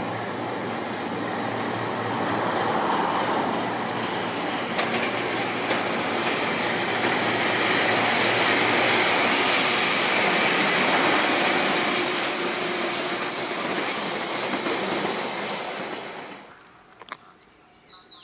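EF200 electric locomotive hauling a long container freight train past at close range: steady rolling noise of the wheels on the rails with a few knocks over the rail joints, getting louder and hissier as the container wagons roll by. The sound cuts off suddenly near the end.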